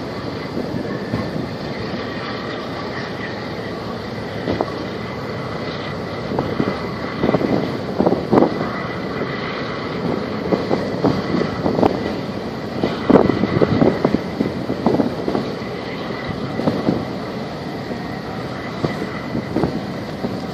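Steady drone of a boat under way, with water sloshing and splashing at irregular moments, several louder splashes in the middle, and a faint steady high whine.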